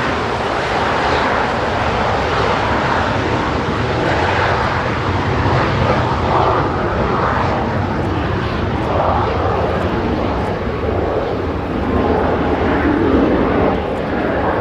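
Jet engine noise from the Blue Impulse team's Kawasaki T-4 jets, loud and steady with slow swells.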